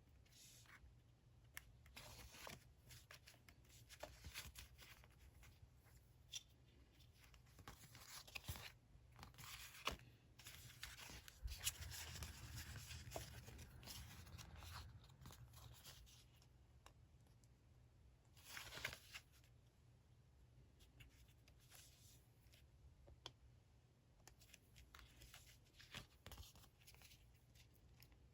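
Faint paper and stationery handling at a desk: irregular rustles and small clicks and taps, with a longer stretch of rustling about halfway through.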